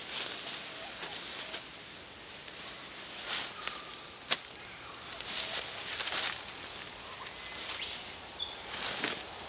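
Camouflage netting rustling as it is draped over a car door, with footsteps on dry leaf litter and a few sharp clicks, the sharpest about four seconds in. A steady high insect drone runs underneath.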